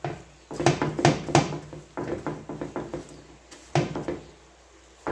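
Honda ATC185S seat foam being handled and pressed by hand on a metal-topped workbench, making a series of knocks and thumps. Several come in the first second and a half, lighter taps follow, and another thump comes near four seconds in.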